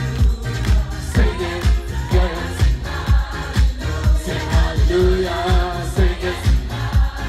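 Live dance-pop song played loud through a concert PA: a steady kick drum about two beats a second under women's vocals singing a held, sliding melody.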